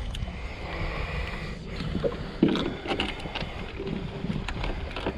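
Wind buffeting the microphone on a small fishing boat, with scattered handling clicks and knocks and one louder knock about two and a half seconds in.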